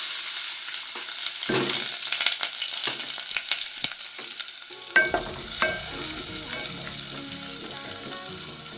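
Onions tipped into hot cooking oil in a pot, sizzling loudly at once, with a few knocks of the spoon against the pot as they are stirred. The sizzle eases gradually.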